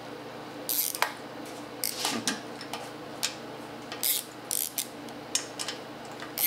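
Hand socket ratchet clicking in short bursts as the intake manifold bolts are loosened, over a steady low hum.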